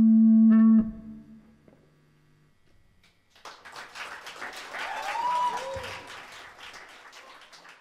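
A live band's final held note cuts off sharply within the first second. After a couple of seconds of quiet, a small audience applauds, with one brief call in the middle, and the clapping tails off near the end.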